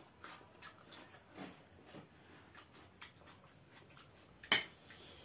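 Quiet eating sounds at a table: soft chewing and mouth clicks, with one sharp click about four and a half seconds in.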